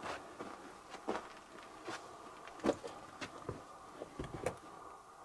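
Footsteps and scuffs on a rocky, gravelly floor: a few scattered knocks and crunches, the loudest about two and a half seconds in and a cluster near the end.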